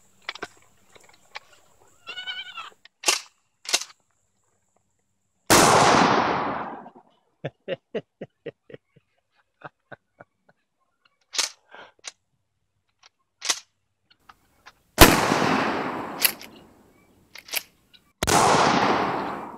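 Three blasts from a Mossberg 500 12-gauge pump shotgun, the first about five seconds in and the other two about three seconds apart near the end, each dying away over about a second. Between shots come short clicks and clacks of the pump action being worked.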